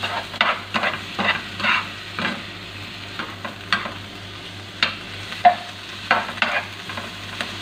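A spoon stirring and scraping carrot strips, bell pepper and pineapple chunks around a nonstick frying pan over a steady frying sizzle. The strokes come in quick, irregular runs.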